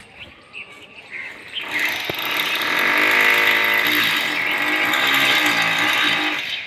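A power tool running with a steady high whine, building up about a second and a half in and dying away near the end.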